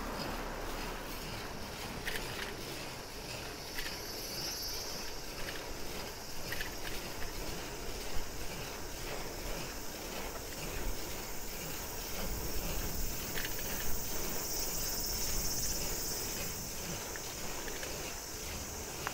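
Riding noise from a mamachari city bicycle: wind and tyre rumble with light ticks about twice a second. Cicadas drone high in the background, swelling around five seconds in and again near fifteen seconds.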